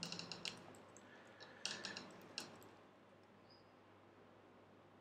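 Faint clicks of computer keyboard keys, a few scattered keystrokes in the first two seconds or so, then near silence.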